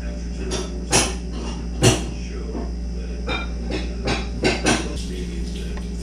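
About six sharp taps and knocks on a wooden platform feeder as birds peck and hop among the seed, the loudest about two seconds in, over a steady low hum.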